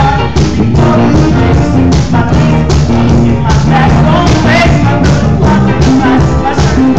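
Live pit band with a drum kit and an electric piano playing a 1950s-style rock and roll number with a steady drum beat, with singing over it.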